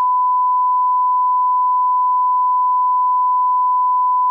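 A steady 1 kHz line-up tone, the reference test tone played with colour bars: one pure, unbroken beep held at constant pitch and level.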